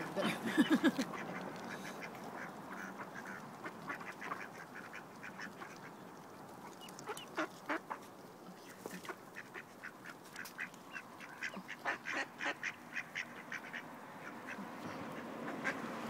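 Mallard ducks quacking in short runs of calls, loudest about half a second in and again in a cluster around twelve seconds.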